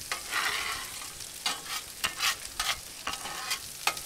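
Garlic cloves sizzling in olive oil in a skillet, with a metal spatula stirring and scraping in the pan, giving a string of sharp clicks and scrapes over the steady hiss.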